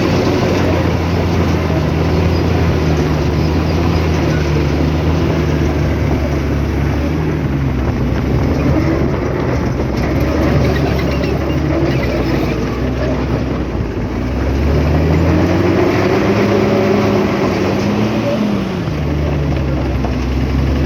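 Heavy earthmoving machine's diesel engine running steadily under load. Its engine speed dips, then climbs about two-thirds of the way through and drops back near the end.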